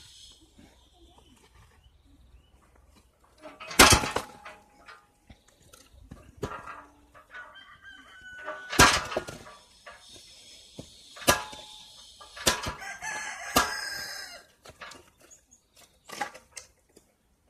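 A homemade spring-loaded lever wood splitter's blade comes down on firewood blocks, giving a series of sharp cracks and knocks as the wood splits. The loudest comes about four seconds in.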